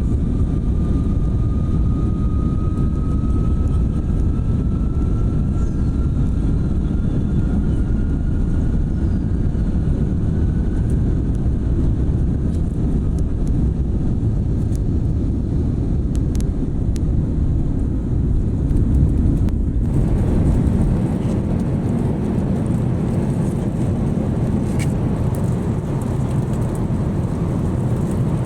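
Jet airliner engines heard from inside the cabin: a loud, steady low rumble with a thin whine slowly rising in pitch over the first ten seconds. The sound changes abruptly about twenty seconds in.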